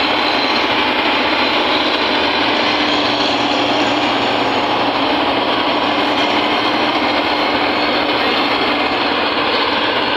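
New Holland combine harvester working close by, cutting and threshing a rice crop: a loud, steady running noise of its engine and threshing machinery.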